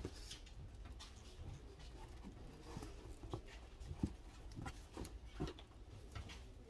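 Rustling and small irregular knocks of flower stems and leaves being handled and bound onto a long garland base, over a low steady hum.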